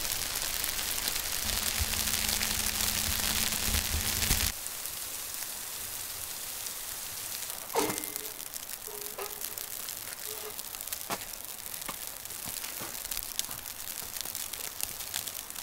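Falling snow pattering as a dense, steady hiss, with a low hum under it, which cuts off about four seconds in to a fainter patter of scattered ticks. A single sharp knock comes about eight seconds in.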